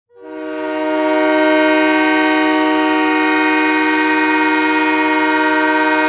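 The Tucson Roadrunners' 2022–23 goal horn sounding one long, steady chord of several tones, swelling to full level within about the first second.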